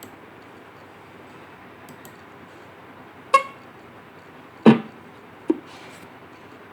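Three short, sudden knocks or taps over a steady hiss: first a brief ringing, pitched tap, then a louder knock, then a softer thump.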